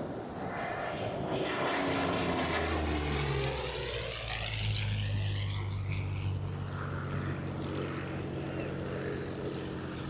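Propeller-driven airplane flying past, its engine and propeller pitch dropping steadily as it goes by, leaving a low drone.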